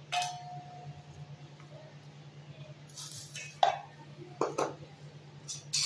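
Stainless steel bowls and a spoon clinking: a knock at the start sets a bowl ringing for about a second, then a few spoon taps and scrapes on steel as gram flour is tipped in and stirred. A steady low hum runs underneath.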